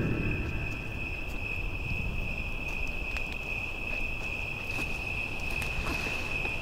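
Crickets trilling in one steady high tone, over a low rumble with a few faint clicks.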